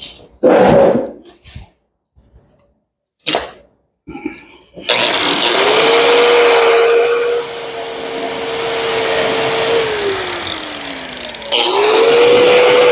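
A few handling knocks, then a small handheld grinder with an abrasive disc spins up about five seconds in and grinds paint off the minibike's steel frame tube, baring the metal for welding. It winds down, then starts and grinds again near the end.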